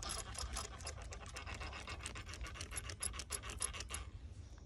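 Spinning reel being cranked in, its gears giving a rapid, scratchy ticking that stops about four seconds in.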